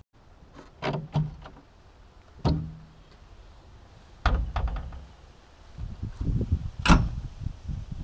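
The cab door of a JCB 3DX backhoe loader being handled and shut: a string of metallic knocks and clunks, the sharpest and loudest bang near the end.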